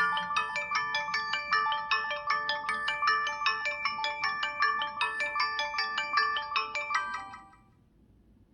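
LG Extravert 2 (VN280) phone playing one of its built-in ringtones through its speaker: a fast electronic melody of many quick notes. It ends and fades to near silence about seven and a half seconds in.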